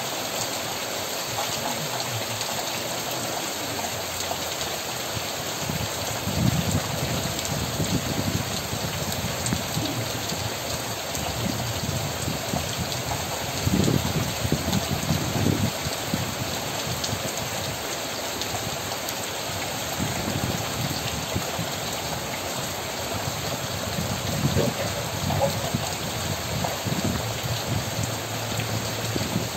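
Steady rain falling on trees, roofs and the yard, an even hiss, with a few brief louder, deeper rushes about six, fourteen and twenty-five seconds in.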